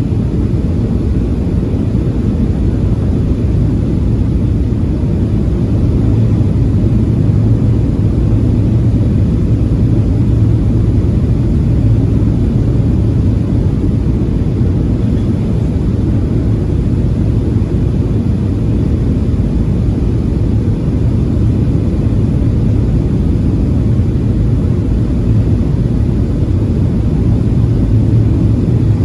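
Boeing 737-700 cabin noise: a steady roar of the CFM56 jet engines and airflow, heard from inside the cabin, deep and even with a faint steady hum above it, swelling slightly a few seconds in.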